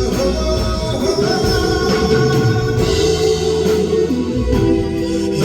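Live band playing a Korean pop ballad between the singer's lines, with guitar and sustained chords.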